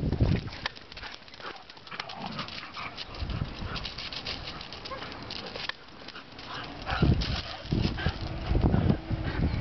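Salukis giving short high-pitched dog sounds over a run of small clicks and crunches, with heavy low rumbling bursts coming in about seven seconds in.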